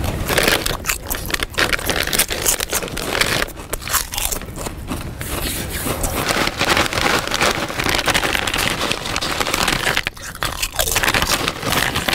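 Loud crunching and chewing of food: a dense, continuous run of crisp crackling bites.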